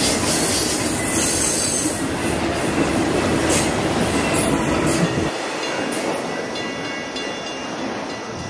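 A train rolling past close by: cars and wheels rumbling, with thin squeals from the wheels. The low rumble cuts off suddenly about five seconds in, and the rest fades.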